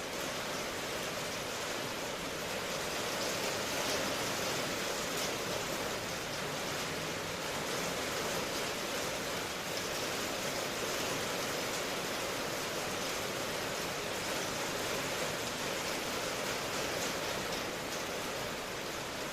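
Steady rain falling, heard as an even hiss with no rumble of thunder.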